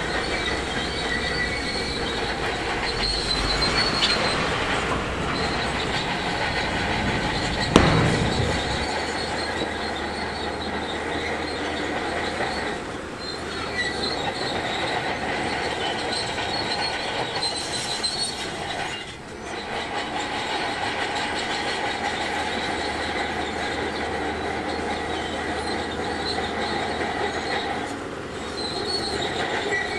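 Shantui DH17C2 crawler bulldozer running, its steel tracks squealing and clanking as it moves. There is a sharp bang about eight seconds in.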